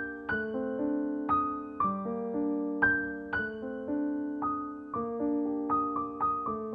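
Background piano music: a gentle melody of single notes struck about twice a second over sustained chords, each note ringing and fading.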